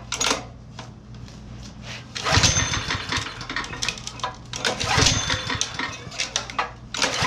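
Honda GX160 single-cylinder engine on a concrete power trowel being pull-started by its recoil rope three times, about two and a half seconds apart, cranking over each time without catching: the engine has not run in years and is being tried after a carburetor cleaning and a new fuel line.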